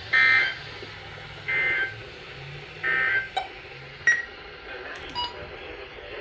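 NOAA Weather Radio EAS end-of-message data bursts: three short, loud bursts of warbling digital tones about a second apart, marking the end of the severe thunderstorm warning, over steady radio hiss. A few sharp clicks follow in the second half.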